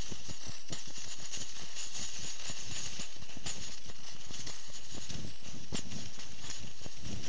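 Portable gas camping stove burning with a steady hiss and a flickering, crackling flame, over an irregular low rumble.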